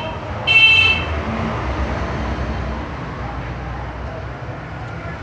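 A vehicle horn toots briefly from the street about half a second in, just after an earlier toot. Steady traffic rumble runs underneath.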